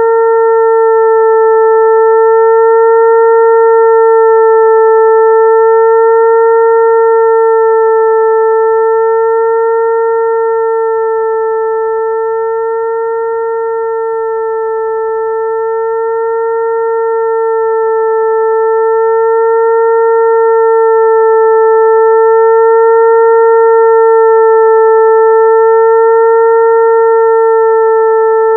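Mosquito-attracting tone: a steady buzzing hum that imitates a mosquito's wing whine, with a slight wavering in it. It swells and fades slowly, softest about halfway through.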